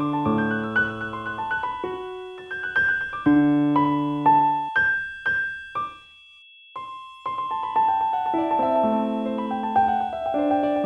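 Slow piano music, notes and chords ringing out one after another, with a pause of about a second around six seconds in before the playing resumes.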